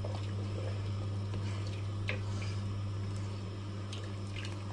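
A spoon stirring thick dal makhani in a pressure cooker pot, giving a few faint scrapes and taps, over a steady low hum.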